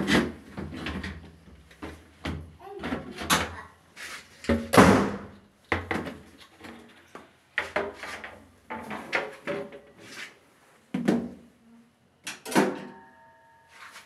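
Sheet-metal top cover of a Samsung front-loading washing machine being slid back and lifted off, with repeated irregular scraping and clattering knocks, loudest about five seconds in.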